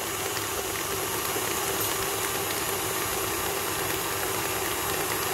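KitchenAid Artisan stand mixer motor running steadily, its beater whipping butter into cooked-flour French buttercream in a stainless steel bowl, beaten until fluffy and white.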